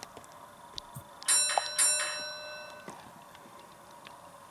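A bell rung twice, about half a second apart, each ring fading slowly; faint ticks come before it. It is the double ding of a bell effect on the model railway's sound system.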